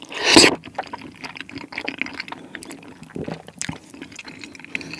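Close-miked wet, squishy chewing of sauce-coated tteokbokki, with many small sticky clicks and one louder burst about half a second in.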